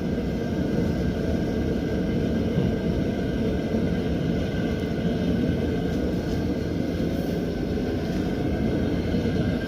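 Mr. Heater propane heater running on its high setting: a steady, noisy low rumble that does not change.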